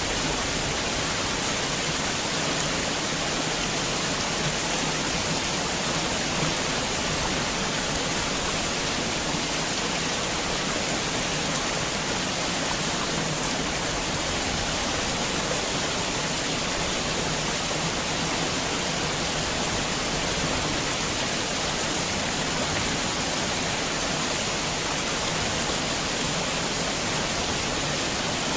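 Heavy rain falling steadily, an even hiss with no thunder or single drops standing out.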